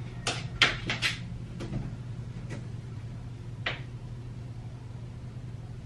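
A wall light switch clicking, followed by a few scattered sharp clicks and knocks over a steady low hum.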